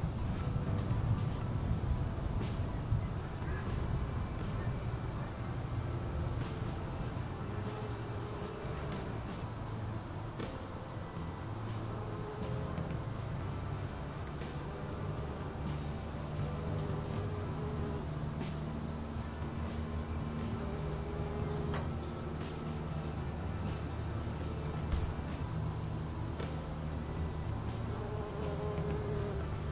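Insects, crickets or similar, trilling steadily at a high pitch, over a low rumble.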